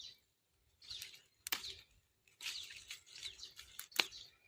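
Small birds chirping faintly in short bunches of high notes, with two sharp clicks about one and a half seconds and four seconds in.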